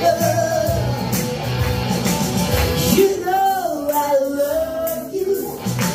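A man and a woman singing a blues song live over instrumental backing with guitar. About three seconds in, a voice holds one long note that wavers in pitch.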